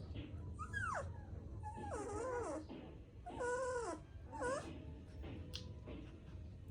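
A dog whining in a series of four high, wavering cries; the first falls in pitch, and the later ones waver up and down.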